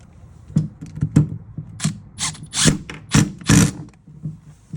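Impact wrench in a series of short bursts, tightening the pulley bolt on a power steering pump; the last few bursts are the loudest.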